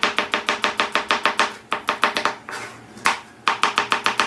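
Kitchen knife chopping an onion on a plastic cutting board: quick, even strokes about six a second, with a pause of about a second past the middle before the chopping resumes.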